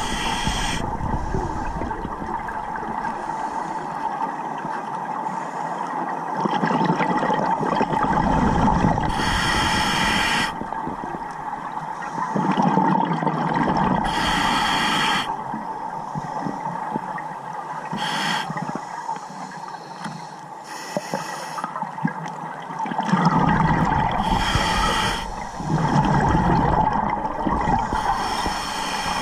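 Underwater sound of scuba regulator breathing: a short hissing inhalation every four to five seconds, with bubbling exhalations rumbling in between, over a steady hum.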